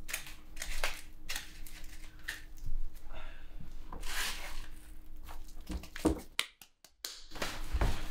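Hands scraping and scooping loose potting soil on cardboard and handling a cardboard box: irregular rustling, scraping and crackling, broken by a moment of silence about two-thirds through.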